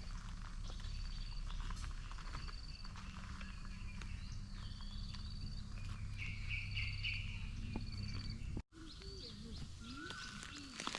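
Forest ambience: a bird repeats a short, high trilled call about once a second over a low steady rumble. Near the end the sound cuts out for an instant and gives way to other bird calls that glide up and down.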